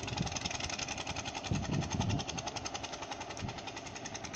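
Fishing boat engine running steadily with a rapid, even knocking, about a dozen beats a second. A louder low rumble swells briefly around the middle.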